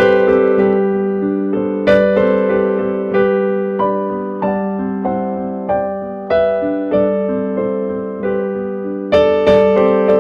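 Slow, gentle solo keyboard music with a piano sound: single notes and chords struck about once every second or so, each left to ring and fade, over a steady held low note.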